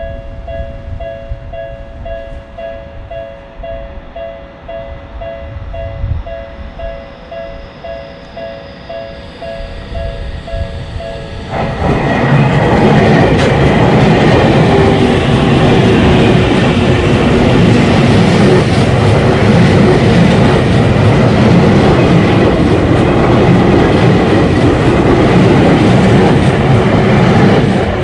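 Japanese railroad crossing warning bell ringing its two-tone "kan-kan", about two strikes a second, over a low rumble. About eleven seconds in, a train passes loudly with rumbling and clattering wheels that drown out the bell.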